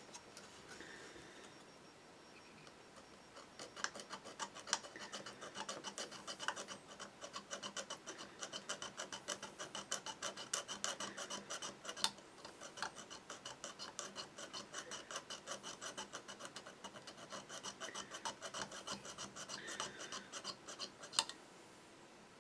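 A razor saw cutting through a plastic model-kit fuselage half in rapid back-and-forth strokes, with a thin high squeak riding on the rasping. The sawing starts a few seconds in, breaks off briefly about halfway, and stops near the end with a small click.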